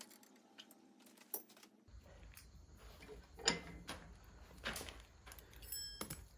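Scattered light metallic clinks and taps from small steel pliers and tools being handled, the loudest about three and a half seconds in, with a brief metallic ring near the end.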